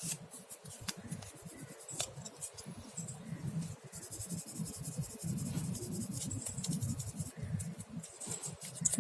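Fine 2000-grit sandpaper rubbing back and forth over a plastic model-kit part, a faint dry scratching in quick repeated strokes with a few small ticks, smoothing a glued seam.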